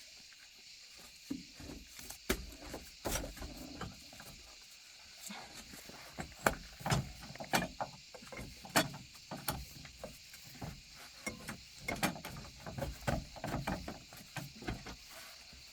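Irregular sharp clicks and light knocks, coming thicker in the second half, as of metal parts and tools being handled during repair work.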